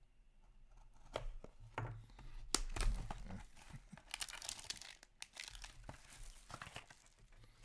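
Plastic shrink-wrap on a sealed trading-card box being torn open by hand because a cutter won't slit it: a few sharp cracks, then a longer stretch of crinkling and tearing in the second half.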